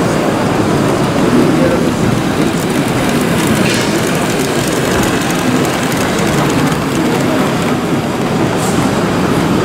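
Model DB V 100 diesel locomotive running along a model railway track, pulling a train of passenger coaches, a steady rolling train noise, over background chatter of voices.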